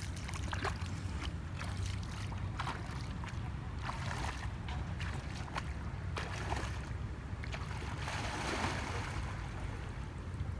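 Water splashing and sloshing around a person's legs as he wades into a muddy river, in short irregular splashes, with heavier splashing about eight seconds in as he sinks to neck depth. A steady low rumble runs underneath.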